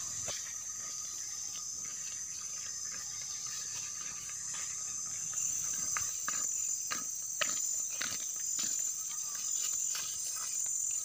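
High-pitched insect chorus throughout, with a repeating high buzz joining about halfway. From about six seconds in, light regular footsteps on an asphalt road.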